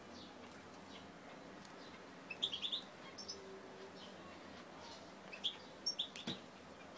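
Zebra finches calling: a quick run of short, high chirps about two and a half seconds in, and a few more near the end.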